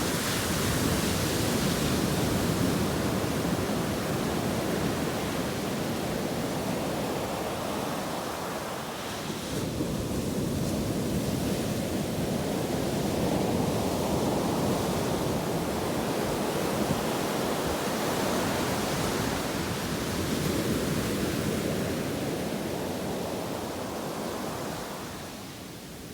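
Ocean surf washing onto a beach: a continuous rushing of breaking waves that swells and eases in long surges, dipping about a third of the way through and fading near the end.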